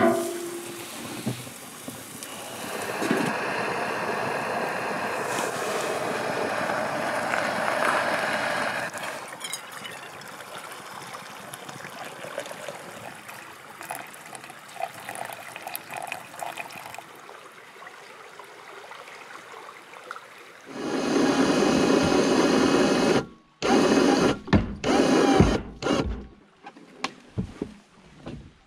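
Venison steaks sizzling on a small camp grill with a steady hiss, then coffee trickling from a stovetop moka pot into a metal mug. Over the last several seconds come loud, uneven bursts of rushing noise on the river.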